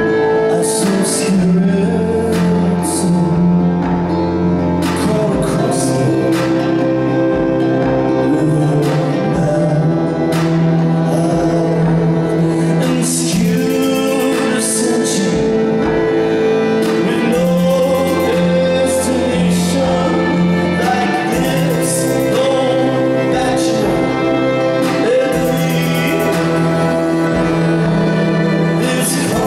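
A man singing a song live over an accompaniment of sustained chords and a held low bass note.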